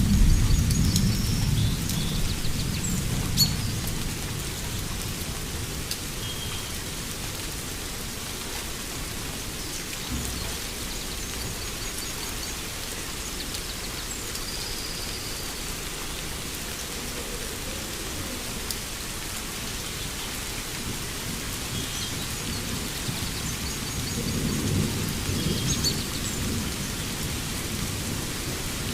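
Steady rain falling, with a low roll of thunder fading away over the first few seconds and another rumble near the end. Birds chirp briefly now and then above the rain.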